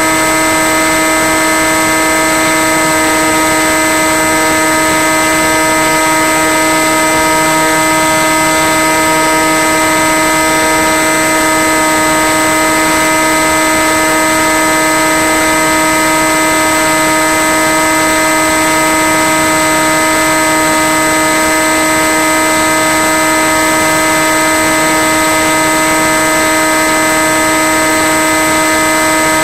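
Electric motor and propeller of a Skywalker FPV plane running at a steady cruise throttle: a constant whine of several fixed tones over an even hiss, unchanging throughout.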